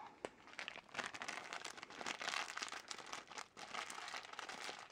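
Plastic wrapping crinkling as it is pulled open by hand to free a vinyl figure. The sound is an irregular run of crackles starting about a second in.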